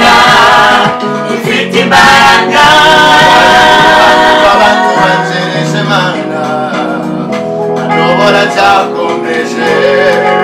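A gospel choir singing a Kinyarwanda hymn live into studio microphones, mixed male and female voices over steady instrumental backing.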